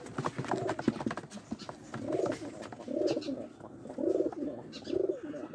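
Domestic pigeons in a wooden coop cooing, a run of low coos about one a second that grows stronger about two seconds in. Light clicks and knocks sound in the first couple of seconds.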